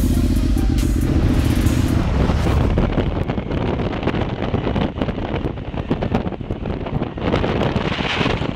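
Motorcycle engine running steadily at a standstill, cut off abruptly about two seconds in. Then a motorcycle riding along, with wind rushing and buffeting over the helmet-mounted microphone above the engine.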